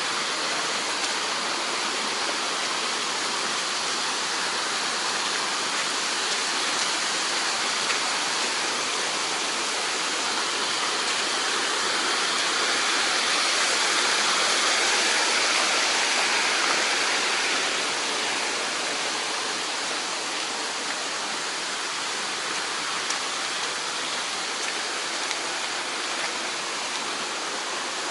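Mountain stream rushing over rocks, a steady water noise that grows louder for a few seconds around the middle and then eases back, the stream swollen just after rain.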